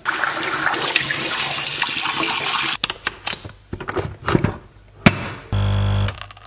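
Tap water running into a kitchen sink as a mug is rinsed, stopping abruptly just under three seconds in. Then clicks and knocks as a capsule coffee machine's lever is raised and shut on a capsule, one sharp click, and the machine's pump buzzing steadily for about half a second as it starts brewing.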